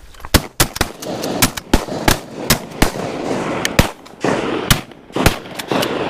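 A rapid volley of shotgun shots from several hunters firing together, about fourteen loud cracks over six seconds, some overlapping, others a fraction of a second apart.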